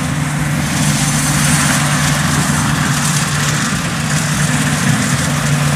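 Kubota DC-70 rice combine harvester cutting rice at speed: its diesel engine drones steadily, with a hiss over it that grows about a second in.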